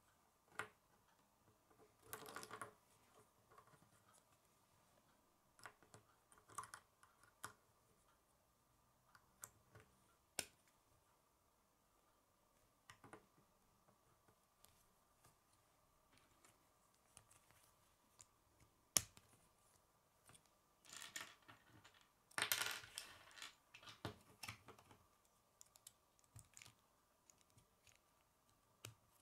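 Plastic K'nex rods and connectors clicking and snapping together as they are fitted by hand: scattered quiet clicks, a single sharp snap about two-thirds through, and a few seconds of rattling clatter just after it.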